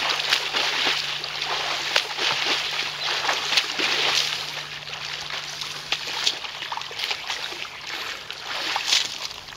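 A swimmer swimming in place in an above-ground pool: repeated splashing of arm strokes and kicks. The splashing is dense for the first half, then thins to scattered splashes as the swimming stops.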